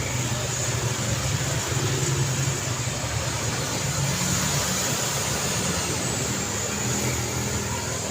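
Steady street traffic: car and motorcycle engines running past in a continuous hum. A thin high whine rises slightly and falls back through the middle.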